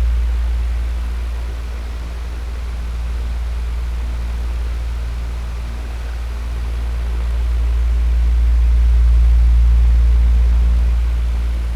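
Electric fan running: a steady low hum under a soft, even rush of air, slowly swelling and fading in loudness.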